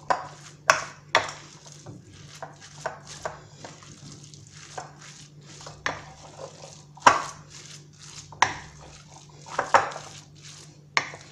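Wooden spoon mixing a sticky mash of cooked rice and boiled chard in a bowl, knocking and scraping against the bowl's sides in irregular strokes. The loudest knock comes about seven seconds in, with two more close together near the end.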